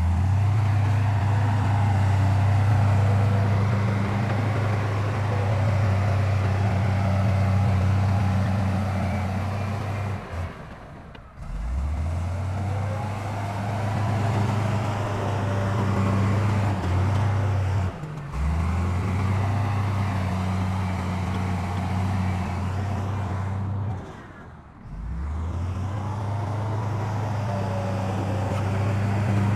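Heavy diesel engines of earthmoving machines running with a steady low drone. The drone breaks off abruptly about 10, 18 and 24 seconds in and starts again each time.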